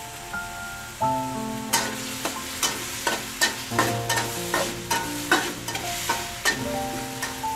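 Pork sizzling in a steel wok while a metal spatula stirs it, scraping and clinking against the pan in quick strokes from about two seconds in. Background music with held notes plays throughout.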